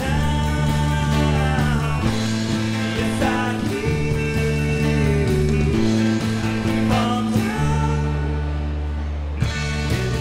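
Rock band playing live: electric guitar, bass guitar, acoustic guitar and drums, with the chords changing about every two seconds.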